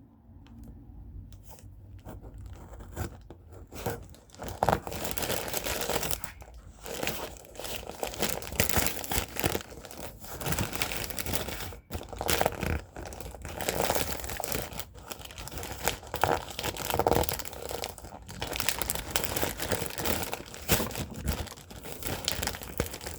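Paper shipping label being torn and scraped off a cardboard box with a pencil tip: irregular tearing, crinkling and scratching, fainter at first and steady from about four seconds in.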